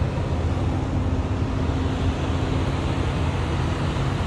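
Semi truck's diesel engine idling steadily, a low even rumble with a faint steady hum.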